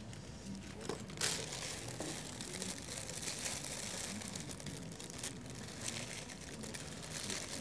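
Irregular crackling and rustling handling noises, with no clear source.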